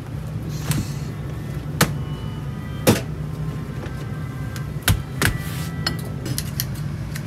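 Sharp knocks and clatters of a wooden box and an under-counter refrigerator being handled at a kitchen counter, about five in all, the loudest near three seconds in, over a steady low hum.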